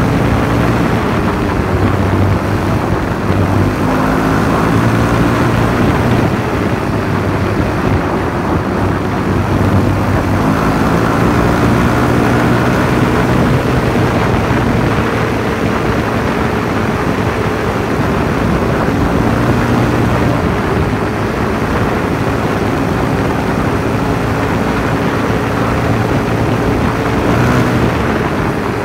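Freshly rebuilt Yamaha WR450F single-cylinder four-stroke dirt bike engine running under way, its pitch rising and falling as the throttle opens and closes.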